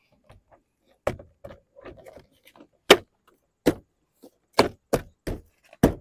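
A plastic car door trim panel, from a 2009 Lincoln MKZ, being pressed and struck by hand onto the door: a series of about eight sharp knocks as its push pins snap into their holes, coming faster toward the end.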